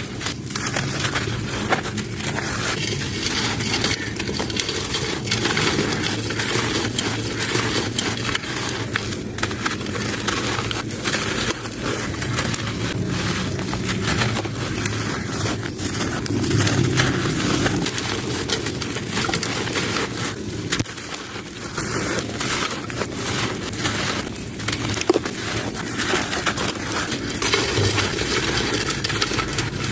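Dry, gritty sand-cement chunks being crumbled and crushed, a continuous crackling of many small cracks and grains breaking apart.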